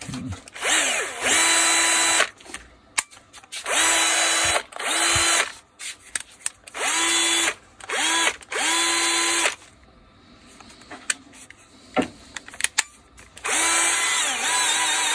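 Bosch GWB12V-10 12 V cordless angle drill, newly fitted with a replacement gearbox, run under no load in about seven short trigger pulls. Each run spins up quickly to a steady whine and stops, with short clicks in the gaps.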